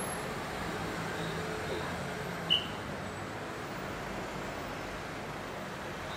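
Steady traffic noise with a low engine hum, and one short high-pitched chirp about two and a half seconds in.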